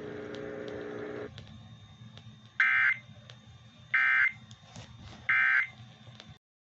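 Three short bursts of Emergency Alert System SAME data tones, the end-of-message code that closes the warning broadcast, each about a third of a second long and roughly a second and a half apart. Before them, a low steady hum for the first second or so.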